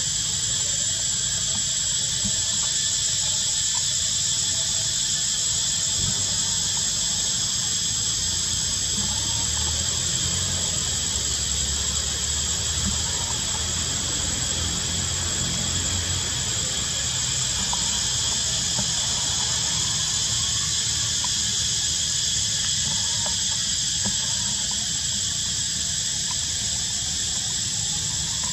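A steady, high-pitched shrill drone of forest insects such as cicadas, unbroken throughout, with a low rumble underneath.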